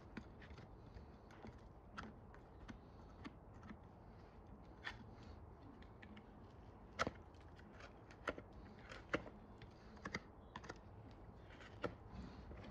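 A metal hand tool picking and scraping at the sole of a shod horse's hoof: faint, irregular scrapes and small clicks, with a handful of sharper clicks where the tip catches.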